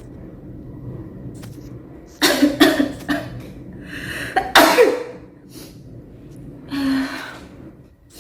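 A woman sneezing several times in a row, set off by a nasal swab in her nose: a quick pair of sneezes a couple of seconds in, the loudest sneeze about four and a half seconds in, and a smaller one near the end.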